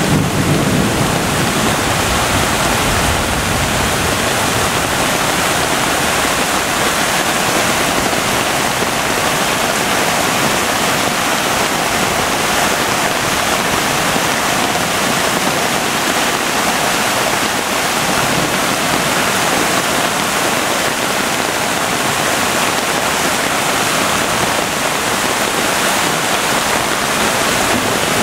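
Loud, steady rush of a flood-swollen creek churning through muddy rapids.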